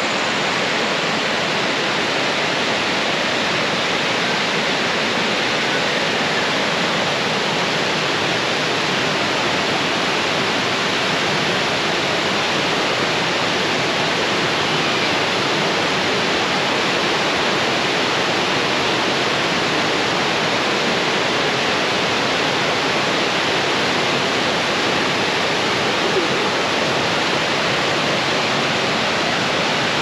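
Waterfall cascading over rocks: a steady, unbroken rush of falling water.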